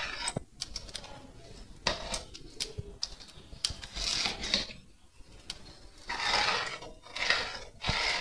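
A spoon stirring and scraping thick nopal mole against the inside of a pot, in repeated swells of scraping with a few sharp clicks.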